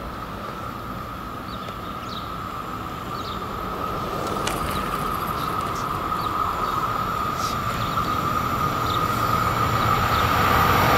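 Freight train hauled by a Swiss Re 620 electric locomotive approaching, growing steadily louder, with a steady high ringing tone over the rising rumble.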